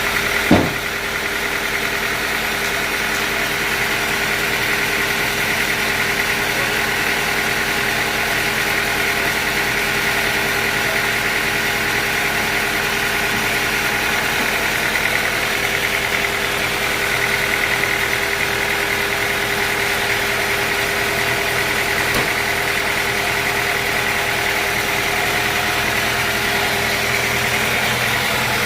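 Sawmill machinery running steadily with a constant hum and whine, and a single sharp knock about half a second in.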